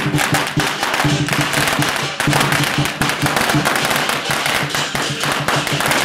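A string of firecrackers going off in a rapid, unbroken crackle, with music sounding steadily underneath.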